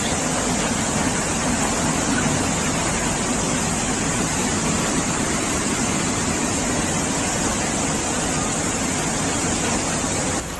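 Flash-flood torrent of muddy water rushing down a street: a steady, loud rush of water.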